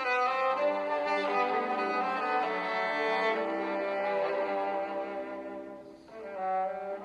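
Background music: bowed strings playing sustained notes that change every second or so, dipping briefly about six seconds in before resuming.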